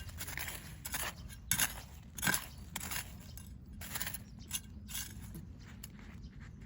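Digging potatoes out of garden soil: irregular scraping and crunching strokes of earth being worked, a few each second, loudest about two seconds in.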